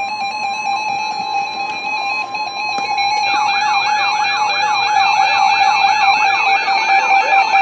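Electronic intro music of steady synthesized tones, joined about three seconds in by a rapid up-and-down siren-like warble, about four sweeps a second.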